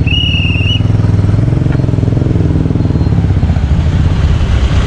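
Yamaha Cygnus Ray-ZR scooter engine running while the scooter is ridden slowly, its pitch rising a little midway and then settling. A short, steady high-pitched tone sounds once right at the start.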